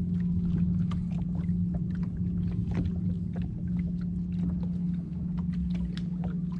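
Steady low motor hum on a small boat, with irregular splashes and drips of water as a fish is lifted in a landing net.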